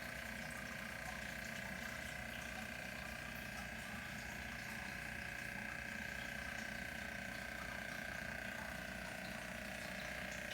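Fish tank's pump running, a steady hum with a constant higher whine.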